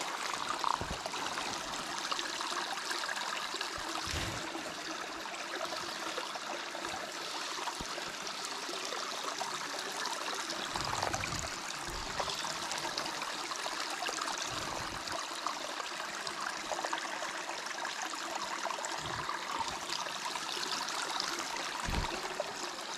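Shallow rocky stream running and trickling over stones, a steady rushing water sound, with a few soft low thumps scattered through it.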